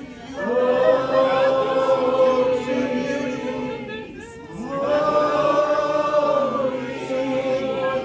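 A congregation of many voices singing out together in long held notes, wordless and chant-like. Two long phrases, with a short break for breath about halfway through.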